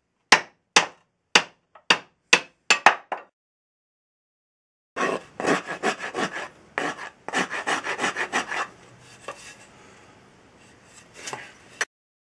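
About eight hammer blows on the butt end of an ash axe handle in the first three seconds, coming faster toward the end, driving the steel axe head down onto the handle's tapered neck. After a gap, quick scraping strokes of a blade shaving a thin piece of wood, ending abruptly near the end.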